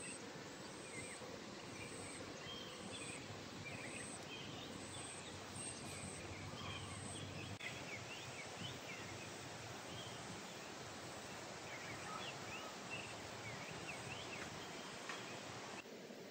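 Outdoor nature ambience: a steady hiss with many short, high bird chirps scattered through it.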